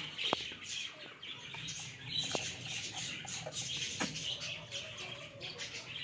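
A flock of caged birds chirping continuously, with three short sharp knocks as a plastic water drinker is handled.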